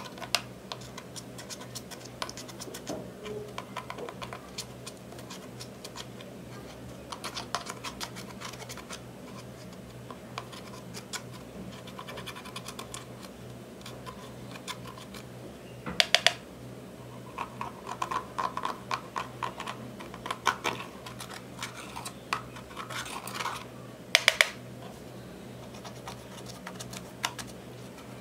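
A thin metal tool scraping and picking pressed eyeshadow out of the pans of a plastic makeup palette: runs of dry scratches and quick clicks, with a few louder clicks standing out about sixteen and twenty-four seconds in.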